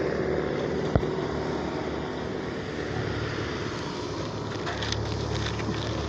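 Wind rumbling and hissing on a phone microphone, with one sharp click about a second in. Near the end comes a crackle as a plastic container and bag are grabbed off the ground.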